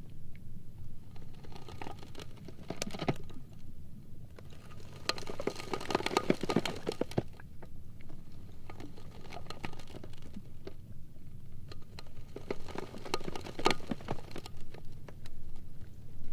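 Sea ice floes rubbing and grinding against each other: uneven bursts of crackling and squeaking over a low steady rumble, the loudest burst about five to seven seconds in and another near the end.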